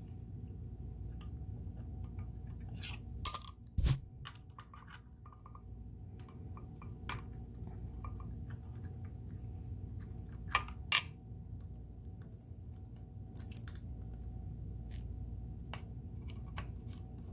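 Screwdriver and small metal parts clicking and tapping as the needle plate screws are taken out of a Kenmore sewing machine: scattered sharp clicks, the loudest in pairs about 3–4 seconds in and about 11 seconds in, over a steady low hum.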